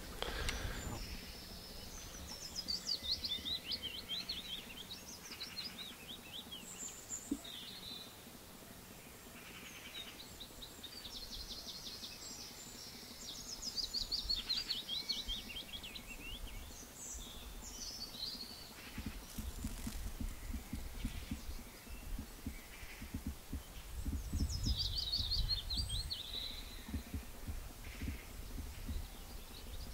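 Songbird singing a short phrase of quick notes that falls in pitch, heard three times (near the start, in the middle and near the end), with brief chirps from other birds between. A low rumbling noise comes in over the second half.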